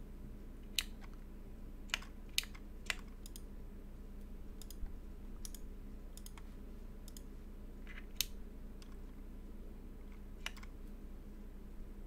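About a dozen light, isolated clicks and taps on a computer keyboard, spaced irregularly rather than in a typing run, over a low steady hum.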